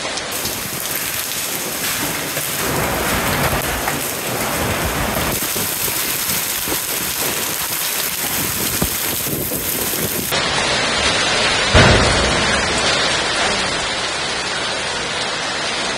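Hail and heavy rain pelting a paved surface: a dense, steady hiss. About twelve seconds in, a single loud crack with a short low rumble after it.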